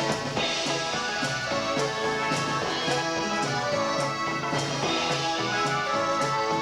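Live dance band playing an instrumental passage: sustained melody notes over a steady drum beat.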